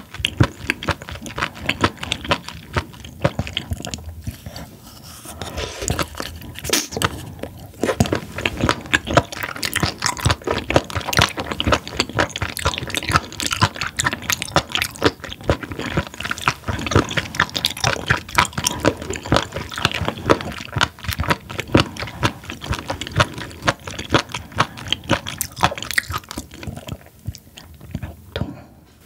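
Close-miked chewing of raw spoon worm, a dense run of quick, crisp, rubbery crunches with wet mouth sounds. It eases off briefly near the end.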